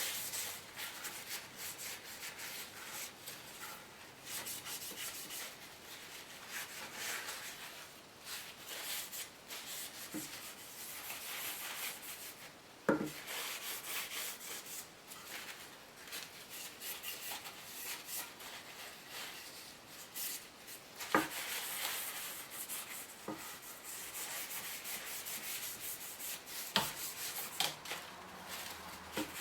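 Scratchy rubbing on wood in uneven back-and-forth strokes, like hand sanding, with no motor running. Three sharp knocks are spread through it.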